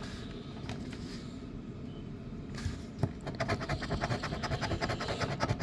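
A coin scratching the coating off a scratch-off lottery ticket in quick, rapid strokes, starting about three seconds in after a quieter lead-in.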